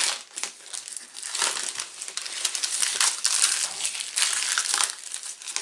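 Cellophane shrink-wrap being peeled off a stack of cardboard game tiles by hand: continuous dense crackling, with sharper crackles throughout.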